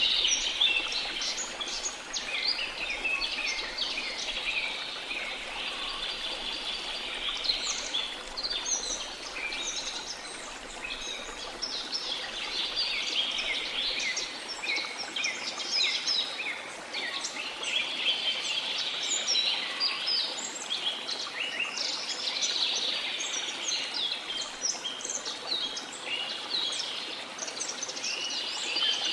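A chorus of many small songbirds chirping and twittering without pause over a steady wash of sea noise.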